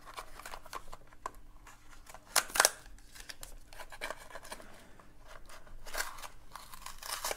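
A small cardboard accessory box being handled and opened by hand: scattered light clicks and rustles of card and paper, with a louder crackle about two and a half seconds in and a smaller one near six seconds.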